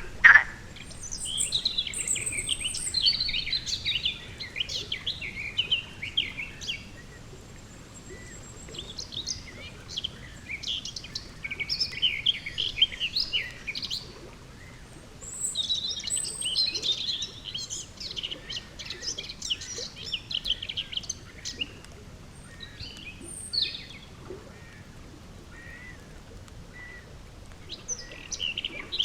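Songbirds singing in phrases of rapid high chirps, each phrase lasting several seconds with short quieter gaps between, over a faint steady outdoor background.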